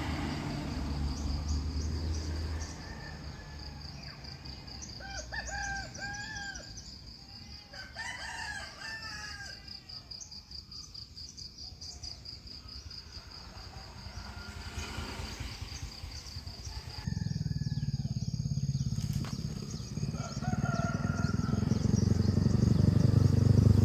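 Roosters crowing a few times, over a steady high insect trill. Near the end a motorcycle engine comes in low and grows steadily louder as it approaches.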